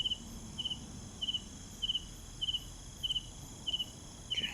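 Crickets chirping: regular chirps of three quick pulses each, about every 0.6 seconds, over a faint steady high-pitched insect hum.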